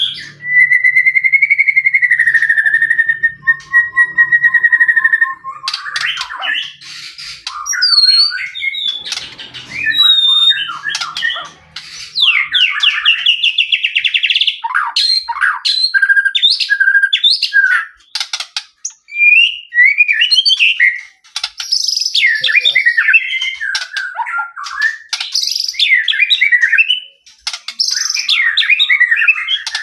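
White-rumped shama (murai batu) in full, persistent song ('gacor'): a long held whistle with a wavering trill for about the first five seconds, then a rapid run of varied whistled phrases, fast trills and sharp chattering notes. This song is used as a lure to provoke another shama into answering.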